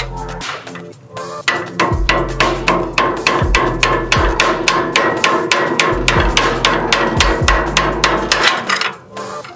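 Rapid, even hammer taps on metal, about four to five a second, with a light ringing tone: driving the new CV axle's inner end into the front differential. Background music with a deep bass line plays underneath.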